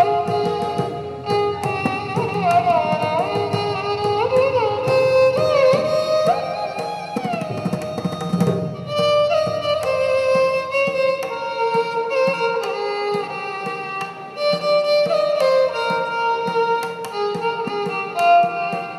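Violin playing a film-song melody in Carnatic style, its notes sliding and bending between pitches, with hand-drum accompaniment.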